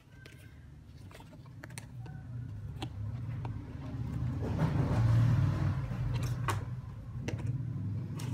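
A passing motor vehicle: a low engine hum that swells to a peak about five seconds in and then eases off. Light clicks and knocks of the plastic multimeter being handled and turned over sound over it.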